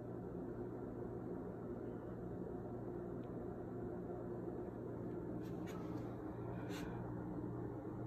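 Steady low hum of room tone, with a few faint short ticks about five and a half and seven seconds in.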